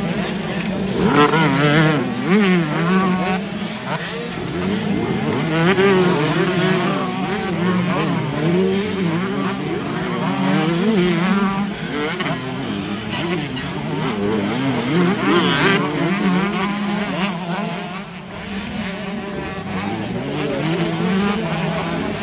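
Several 125cc two-stroke motocross bikes revving hard around the track, their engine notes repeatedly rising and falling as riders throttle through the corner and over jumps.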